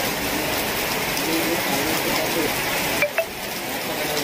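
Heavy rain falling steadily: a dense, even hiss of rain on the ground and surfaces. Two brief clicks come a little past three seconds in.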